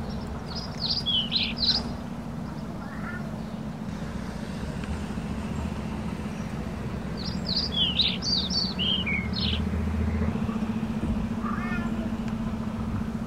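A bird chirping in two bursts of quick, falling notes, about a second in and again past the middle, over a steady low hum and a low outdoor rumble.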